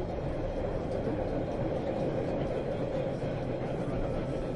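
Subway train running between stations, heard from inside the car: a steady rumble of wheels on track with an even hum through it.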